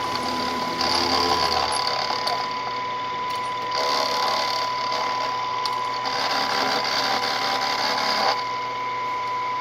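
Bench milling machine's end mill cutting into a metal part held in a vise, over a steady high whine from the spindle. The cutting noise swells in three stretches and eases off near the end, leaving the spindle running.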